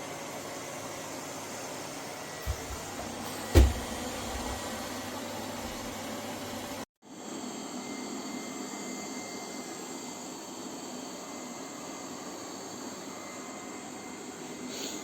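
Lefant M330 Pro robot vacuum running with a steady whirring hum. There is a light knock about two and a half seconds in and a louder knock about a second later. The sound cuts out for a moment about seven seconds in, then resumes.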